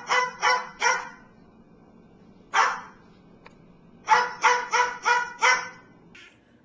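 A dog barking in bursts: three quick barks, a single bark, then a quick run of five.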